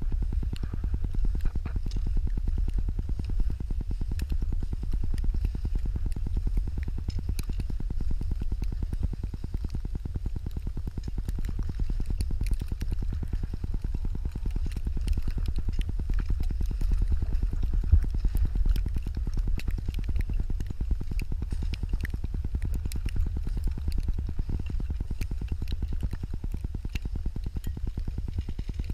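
Steady low rumble of wind buffeting an action camera's microphone, with hiss and scattered small crackles of skis sliding over fresh snow.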